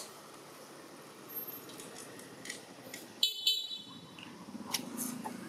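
Two quick toots of a vehicle horn about three and a half seconds in, with the low hum of an engine building near the end.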